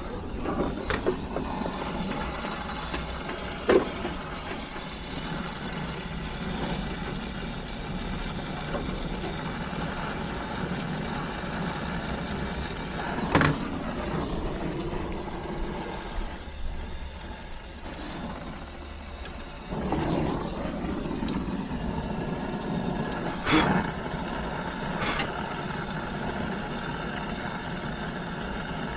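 Steady mechanical running noise with a low hum, broken by three sharp knocks about ten seconds apart; it drops away for a few seconds after the middle and comes back abruptly.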